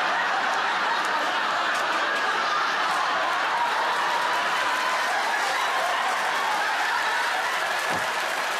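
Studio audience laughing loudly and steadily, many people together, with some clapping mixed in.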